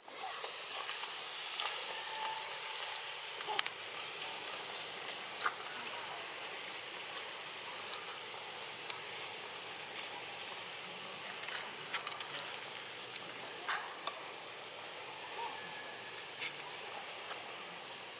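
Steady, high hiss of an insect chorus, with scattered small clicks and rustles.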